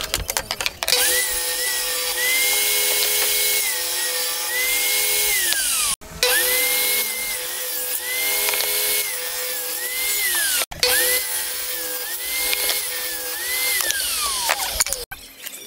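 Table saw running and cutting wooden panels, its whine rising and falling in pitch as the wood is fed through the blade. The sound breaks off sharply three times and starts again.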